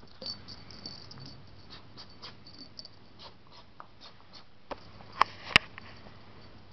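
Eight-week-old Miniature Pinscher puppy moving about at play: a run of small clicks and scuffs, then three sharp knocks about five seconds in, the last two loudest.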